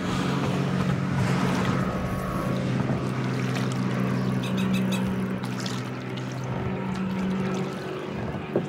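A motorboat engine running with a steady drone that eases off near the end, with water splashing at the surface.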